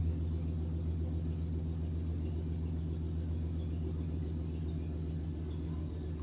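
Pickup truck engine running steadily at an even, low speed.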